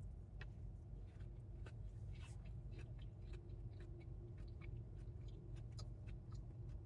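A person chewing fried food, with many small, irregular clicking mouth sounds, over a faint steady low hum.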